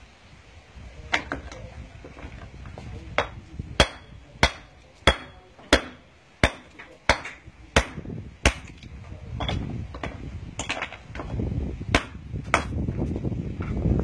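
Mason's pick hammer striking a natural stone block to dress its edges: a steady run of about nine sharp, ringing blows, roughly one every two-thirds of a second, then a few more spaced-out strikes near the end.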